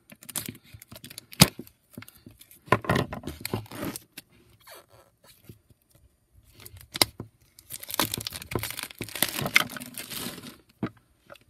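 Plastic shrink-wrap on a clear plastic trading-card box being picked at and scratched, with scattered clicks and knocks. About eight seconds in, the wrap is torn and crinkled off in a dense crackling stretch lasting about two and a half seconds.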